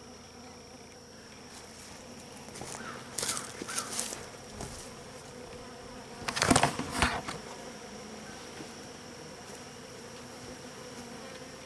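Honeybees humming steadily around an open hive. Brief rustles and knocks break in about three seconds in, and louder again around six and a half seconds.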